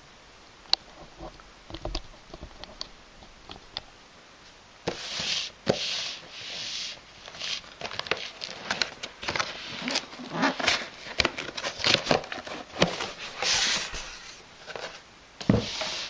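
A cardboard box being handled and opened. At first there are a few light clicks and taps, then from about five seconds in a run of cardboard scraping and rustling broken by sharp clicks and crackles.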